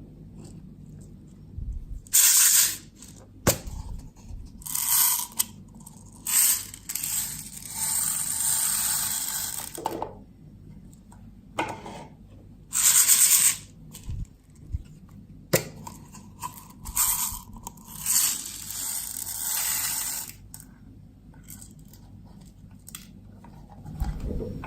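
Clear slime being handled: a string of crackly tearing and scraping bursts, some short and some lasting a couple of seconds, with quiet gaps between them.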